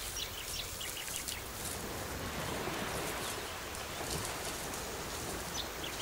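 Outdoor ambience: a steady hiss of natural background noise with small birds chirping in short calls, a cluster of chirps in the first second and a half and again near the end.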